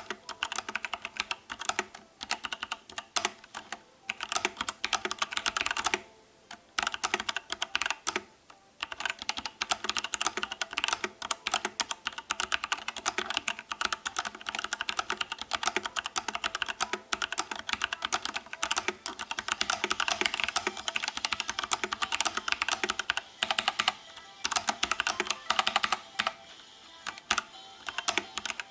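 Fast, continuous typing on a mechanical keyboard with Outemu Brown (tactile, Cherry MX Brown clone) switches, a dense run of key clicks and bottom-out clacks with a couple of brief pauses early on.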